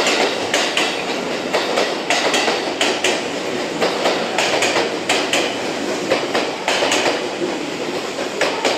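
Passenger train cars rolling past alongside a station platform, with a steady clatter of wheels clacking over rail joints.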